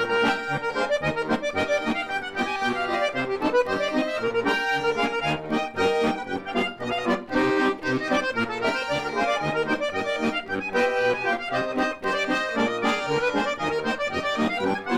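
Accordion playing a lively folk tune alone, with held chords in the right hand over a stepping bass accompaniment, as the instrumental ending of a comic song.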